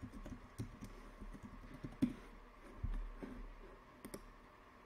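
Keystrokes on a computer keyboard: irregular taps as a password is typed, with a duller knock a little under three seconds in.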